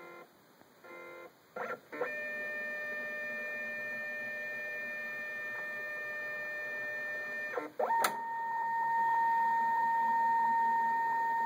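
Brother MFC-J825DW flatbed scanner scanning a page: the scan-head motor gives a few short stutters, then a steady whine for about five seconds. After a click near eight seconds in, a louder, higher-pitched steady whine runs until it cuts off.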